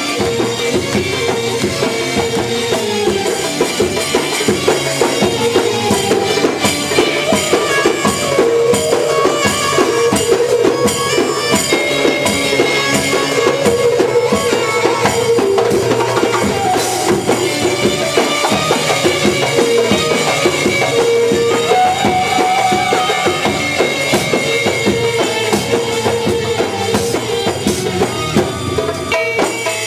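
Egyptian belly-dance music played live: a busy drum and tambourine rhythm under long held melody notes.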